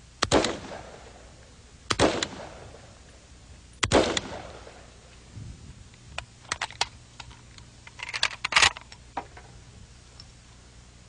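Semi-automatic hunting rifle fired three times, about two seconds apart, one shot per trigger pull, each report ringing out briefly. Over the next few seconds come scattered sharp clicks and clatter, with a loud cluster near the end.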